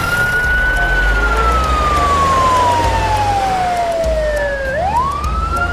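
Fire truck siren sound effect wailing: a quick rise, then one long slow fall in pitch, and a fast rise again near the end, over a low rumble.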